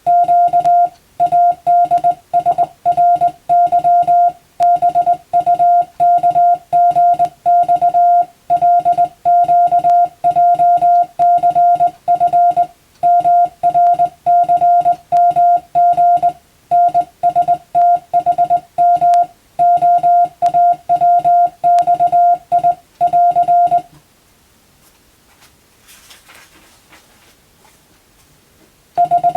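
Morse code (CW) sent by hand on a telegraph key: a single steady beep keyed on and off in quick dots and dashes, spelling out English-language telegram text. About 24 s in the sending stops for roughly five seconds, with only a faint rustle, then resumes near the end.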